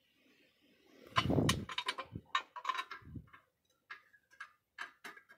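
Light metallic clicks and taps of loose bolts being handled and set back into place on an engine, with a louder rustle of handling a little over a second in.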